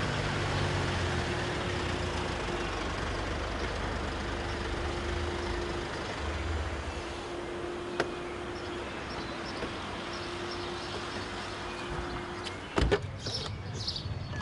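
A car's engine running as it rolls in and pulls up, its low rumble fading over the first half. A single click about eight seconds in, and a pair of loud knocks near the end.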